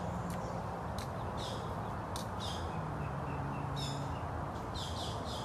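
Birds chirping in short, repeated high calls over a steady background of outdoor noise.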